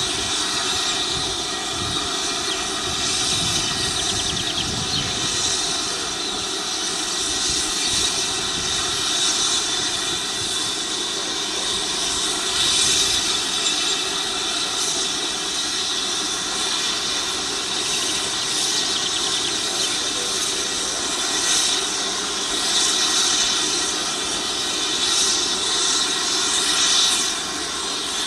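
Quadcopter drone, a DJI Mavic Pro, whining steadily from its propellers and motors, with small swells in level.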